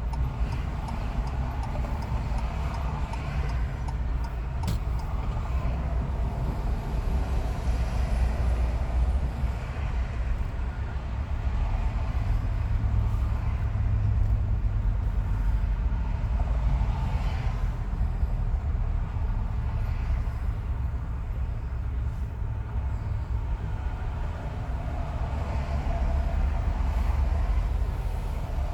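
Car road noise at freeway speed: a steady low rumble of tyres on pavement.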